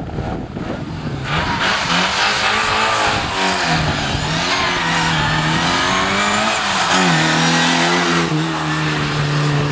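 Classic Mini rally car's A-series four-cylinder engine driven hard towards and past the camera, its note climbing and dropping several times. About eight seconds in, the rushing noise stops and a steadier engine note is left.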